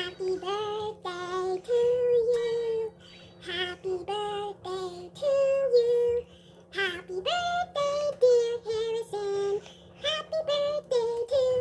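A girl singing a tune in short phrases of held notes with brief gaps between them. A faint steady hum lies underneath.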